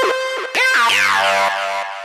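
Electronic music on synthesizer: a held tone broken by several sharp downward pitch dives in quick succession, then a cascade of falling tones settling into a held low note that fades near the end.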